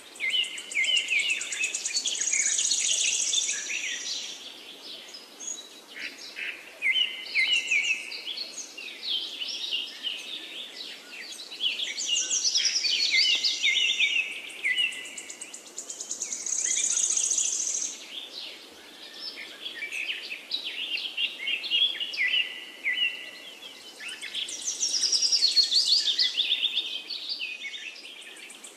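Oil sizzling steadily around vegetable fritters deep-frying in a wok. Over it a songbird sings bright, trilled phrases, repeated every few seconds.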